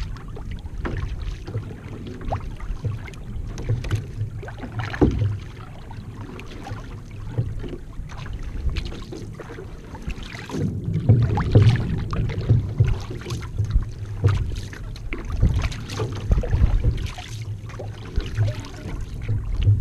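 Paddle strokes splashing and water rushing along the hull of a one-person outrigger canoe being paddled at sea, over a low rumble of wind and water on the microphone. It gets louder from about halfway through.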